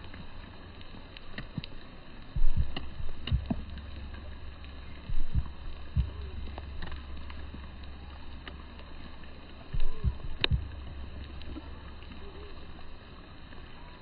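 Rain falling, with irregular close taps and a few louder thumps over a low steady rumble that stops near the end.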